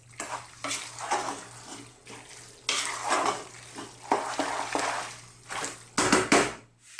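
Wooden spoon stirring and tossing sauced tagliatelle in a non-stick pot, in irregular strokes that grow loudest about six seconds in, over a faint steady low hum.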